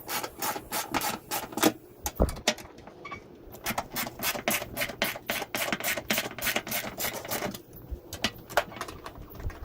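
Socket ratchet clicking in quick runs of strokes as the fender bolts are undone, with short pauses about two seconds in and again near the end.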